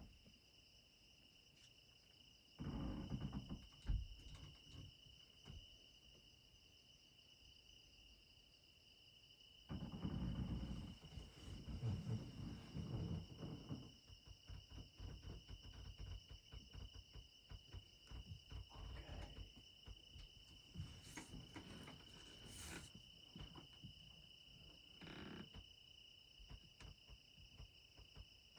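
Steady high-pitched insect chorus droning on two pitches, with bursts of low muffled noise about 3 seconds in and again from about 10 to 14 seconds in.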